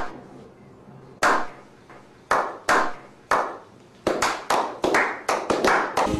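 A slow clap by a small group of men: single hand claps about a second apart at first, then speeding up into quicker clapping from about four seconds in.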